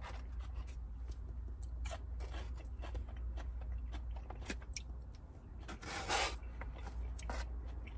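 Eating sounds: rubbing and scraping against a takeout food container, with scattered short clicks and a longer rustle about six seconds in, over a steady low hum.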